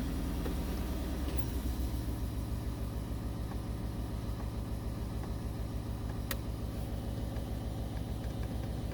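Ford Raptor's 3.5-litre twin-turbo V6 idling, the idle stepping up a little about a second in, as just after a start. A single sharp click sounds about six seconds in.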